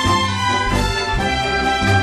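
Background music in an orchestral style: held chords over a low bass line, the notes changing every half second or so.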